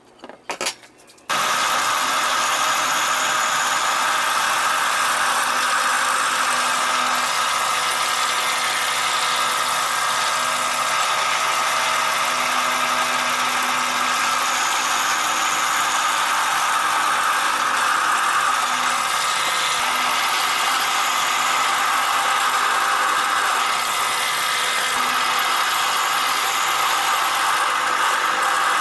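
Benchtop drill press running steadily as its bit bores into a wooden rail, cutting in abruptly about a second in after a few light taps.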